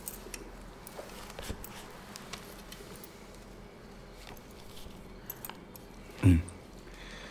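Faint, scattered light clicks and clinks of small things being handled, and one short low voice sound about six seconds in.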